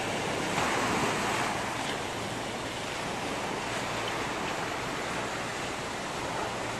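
Small waves breaking and washing up a sandy beach, with wind on the microphone; one wave breaks louder about half a second in.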